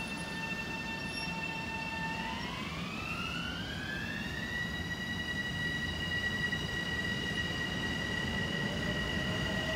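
Long Island Rail Road M7 electric multiple-unit train rolling by with a low rumble and a high electric whine from its propulsion system. The whine glides up in pitch about two seconds in, then holds steady, and a fainter lower tone joins near the end.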